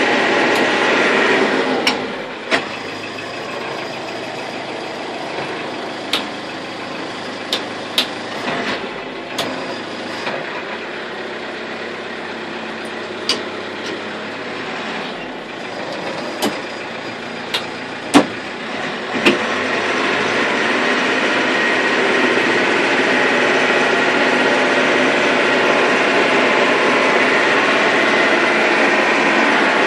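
Cat 416C IT backhoe loader's diesel engine running, dropping to a lower level about two seconds in, with a dozen or so sharp metallic knocks scattered over the next seventeen seconds, then rising back to a louder, steady run about twenty seconds in.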